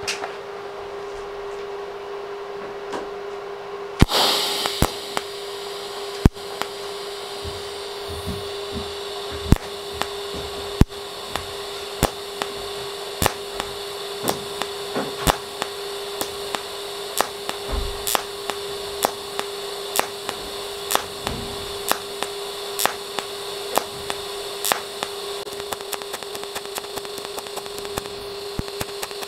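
TIG welding arc on a thin metal plate: a crackling strike about four seconds in, then the arc running over a steady hum, with sharp ticks repeating evenly about one and a half times a second as the current pulses.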